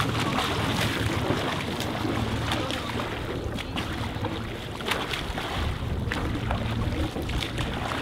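Steady low hum of the escort boat's engine running, under wind buffeting the microphone and sea water splashing.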